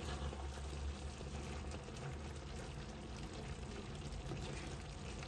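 Chicken stew in a pot being stirred and turned over, giving soft, steady wet liquid sounds over a low hum.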